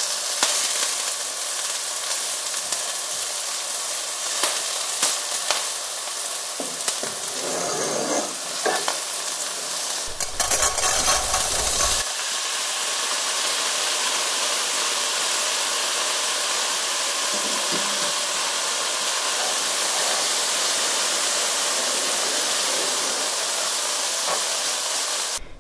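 Diced onion and sage sizzling in oil in a nonstick pan, stirred with a wooden spatula that scrapes across the pan. About ten seconds in, raw Vialone Nano rice is poured in with a rush of falling grains lasting about two seconds, then the rice toasts with a steady sizzle.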